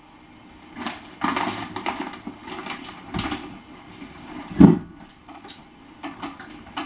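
Irregular rustling and handling noises, with one loud dull knock about two-thirds of the way through.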